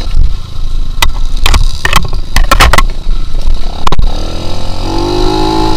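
A trail motorcycle's engine runs while riding a rough dirt track, with several sharp knocks through the middle. Near the end the engine revs up, its pitch rising.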